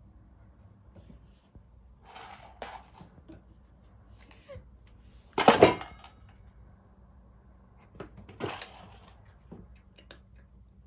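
Clattering and rattling of a cat food puzzle toy as cats paw at it, in several short bursts, the loudest about halfway through.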